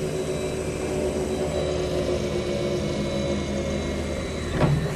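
A motor-driven machine running steadily with an even pitch, then stopping abruptly just after a knock near the end.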